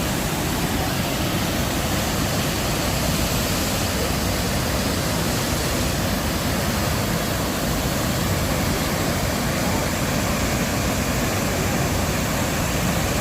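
Steady, loud roar of the Iguaçu Falls waterfall, an even rushing of falling water.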